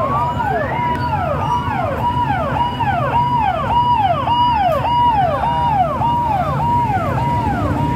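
Several sirens on a column of police motorcycles sounding together, each repeating a short cycle about twice a second, a held high note then a quick drop, out of step with one another. The motorcycles' engines run underneath as a low steady rumble.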